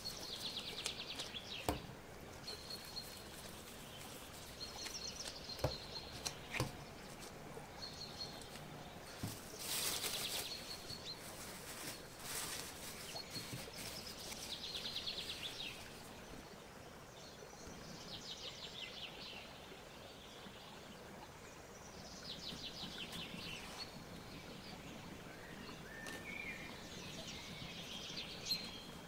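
Birds chirping and trilling over low background hiss, with a few sharp knocks in the first half.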